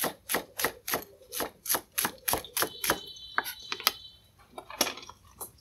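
A large kitchen knife chopping green onion stalks on a round wooden chopping board: a steady run of quick chops, about three or four a second, thinning to a few scattered strokes over the last two seconds.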